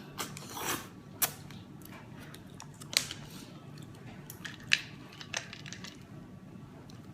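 Someone eating cooked spiral-shelled snails: a handful of short, sharp sucking slurps and clicks, spaced irregularly a second or more apart.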